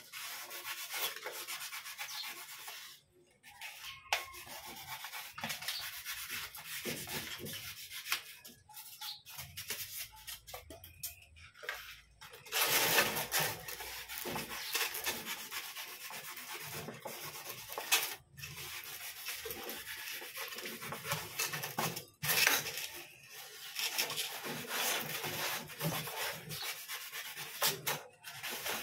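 Utility knife blade sawing through a sheet of styrofoam, a scratchy rubbing and squeaking in short strokes, with a few brief pauses.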